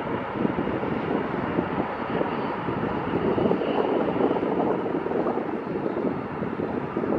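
F-16 fighter jet engine running as the jet taxis onto the runway: a steady, noisy jet rumble that swells and dips a little in loudness.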